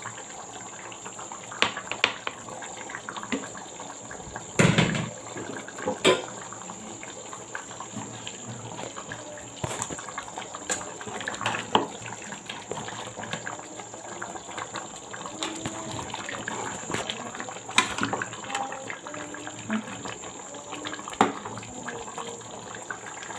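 A large pot of egusi soup bubbling, with scattered knocks and clinks as pieces of fish are put in and settled.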